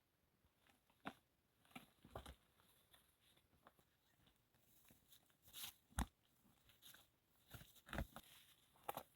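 A few faint, scattered crunches and snaps, the loudest about six seconds in, over near silence.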